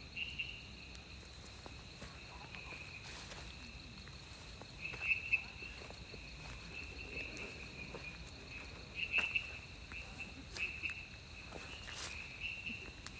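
Faint night chorus of calling insects: a steady high chirring with louder chirps every few seconds, and a few light clicks or rustles.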